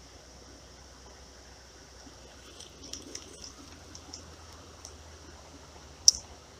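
Light clicks of an ultralight spinning reel being worked, with one sharp click about six seconds in, over the faint steady hiss of flowing creek water.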